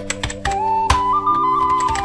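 Background music with a flute-like melody held over steady chords, with sharp clicks and taps scattered through it; one louder click comes about a second in.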